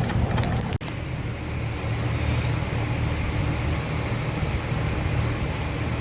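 Steady low hum of workshop background noise, with a few light metallic clicks in the first second from hand work on the shifter plate hardware.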